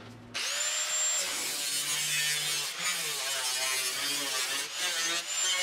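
Angle grinder switched on about half a second in, whining up to speed, then cutting through the rusty sheet-steel rear fender of a Triumph GT6, its pitch wavering and dipping as the disc bites.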